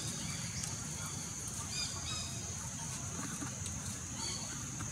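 Short high-pitched squeaks from a baby macaque, a few brief calls spaced about two seconds apart, over a steady high-pitched background drone.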